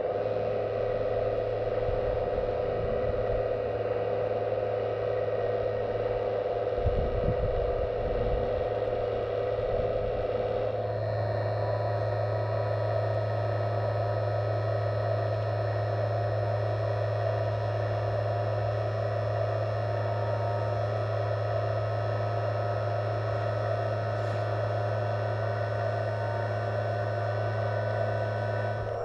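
Scale RC hydraulic excavator running: a steady mechanical hum made of several fixed tones that shifts pitch about eleven seconds in, with a brief low rumble around seven seconds.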